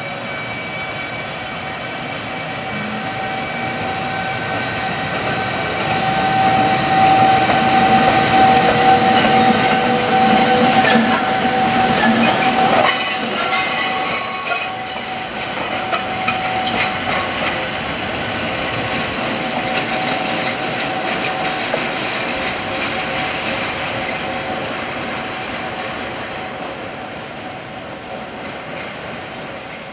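JR Freight EF210 electric locomotive, hauling an unpowered DE10 diesel, passing with a steady whine and the running of its wheels on the rails. A brief high-pitched wheel squeal comes about halfway through, and the sound drops off just after it. It then fades gradually as the locomotives move away.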